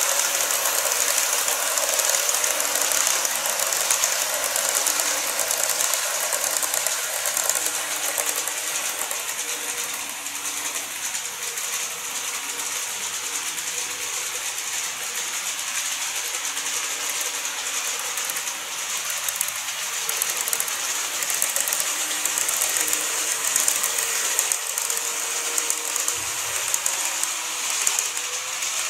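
KATO N-scale model trains running on the layout's track: a steady fine clicking and rattling of wheels on rail, with a faint motor hum that comes and goes.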